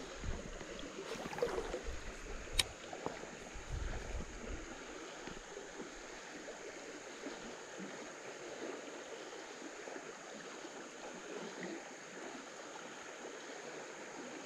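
Flooded creek running high and fast, a steady rushing of water. In the first few seconds there is some low rumbling and a few knocks, with one sharp click about two and a half seconds in.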